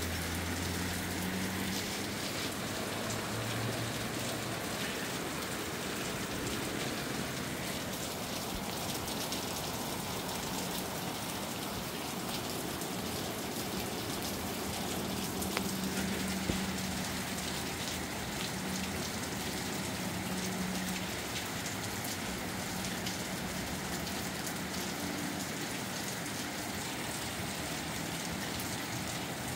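Steady rain falling and pattering on surfaces, with two sharper drip ticks a little past halfway.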